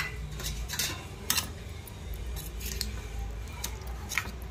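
Metal spoon clinking and scraping against the side of an aluminium pot while stirring a simmering potato-cauliflower curry: a handful of scattered light clinks over a steady low hum.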